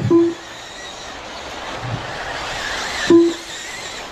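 Electric RC buggies running on the track, a steady hiss of motors and tyres, with two short electronic beeps about three seconds apart, at the start and near the end.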